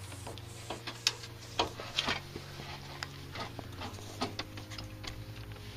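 Irregular metallic clinks and knocks as an aftermarket exhaust backbox is twisted and pushed onto the exhaust pipe, the sharpest few about a second apart. Background music with steady low bass notes runs underneath.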